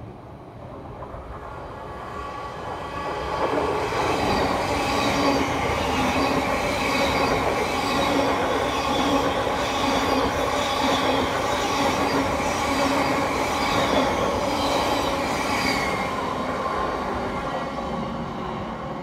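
Thameslink Class 700 electric multiple unit passing through the station at speed without stopping: the sound swells as it approaches, then stays loud for about twelve seconds with a rush of wheels on rail and steady tones over it as the carriages go by, and fades near the end as it recedes.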